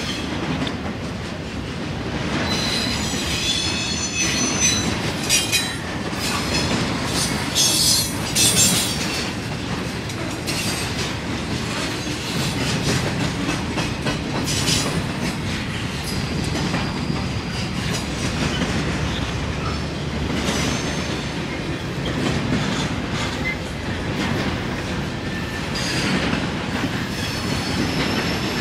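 Intermodal freight train of trailer-carrying flatcars rolling past close by: a steady rumble of steel wheels on rail with clicking over the rail joints. High-pitched wheel squeal comes in a few seconds in and again near the end.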